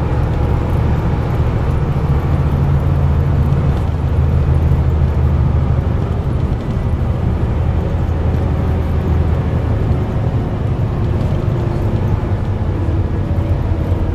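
Scania N230UD double-decker bus's five-cylinder diesel engine and road noise heard from inside the passenger cabin while travelling at speed: a steady low drone that dips briefly about six and a half seconds in.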